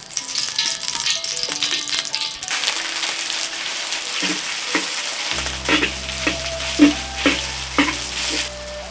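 Food sizzling as it fries in a hot pan, a dense steady hiss. From about halfway through, a utensil strikes the pan about twice a second as the food is stirred.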